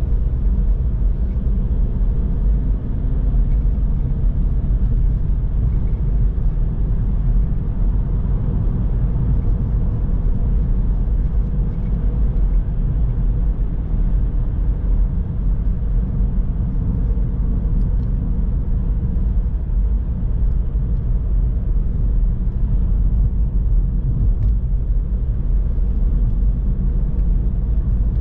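Car driving along a road at a steady pace: an even, low rumble of road and engine noise with no change.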